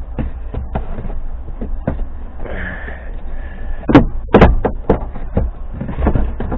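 Irregular clicks and clunks of hands and tools working inside a junked car, with two louder knocks about four seconds in.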